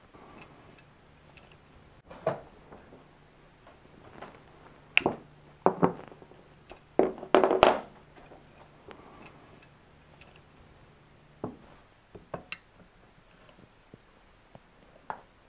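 Scattered clunks and knocks of an AR-15 rifle and metal tools being handled and set down on a workbench, the loudest cluster a little past the middle, over a faint steady hum.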